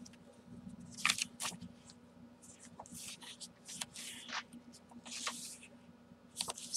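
Paper pages of a handmade junk journal rustling and swishing as they are handled and turned, in short brushes about a second apart.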